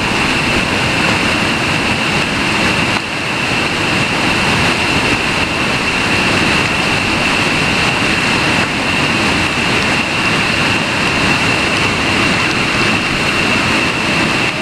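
Whitewater rapids rushing steadily, a constant dense sound of churning river water, with a steady high-pitched tone running over it.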